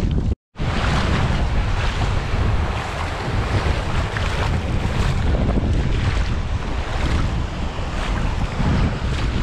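Strong wind buffeting the microphone, with choppy sea waves lapping and breaking in shallow water over a stony bottom. The sound cuts out completely for a moment about half a second in.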